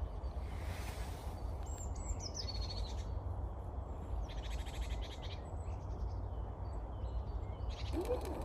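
Several faint, high chirping calls of small birds over a low, steady rumble.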